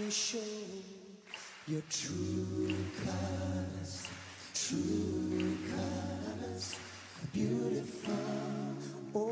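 Background music of slow, sustained vocal chords, held notes changing every couple of seconds, with no words made out.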